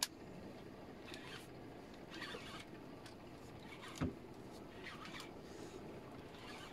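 Shimano Genpu 200 PG jigging reel being cranked against a hooked fish, giving a few short, faint rasps. A single thump comes about four seconds in.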